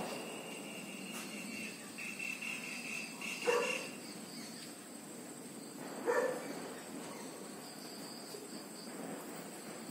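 A dog barks a few times, with short single barks at the start, about three and a half seconds in and about six seconds in. Steady insect calls run underneath, with a high trilling tone for a couple of seconds around the second bark.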